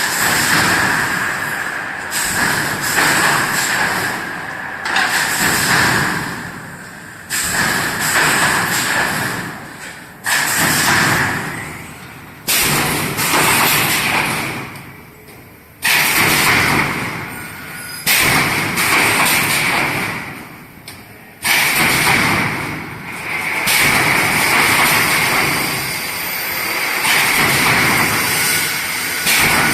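3D panel wire-mesh welding machine running through its work cycle, repeating every two to three seconds. Each cycle starts suddenly with a noisy rush that fades away. Toward the end the noise runs more continuously.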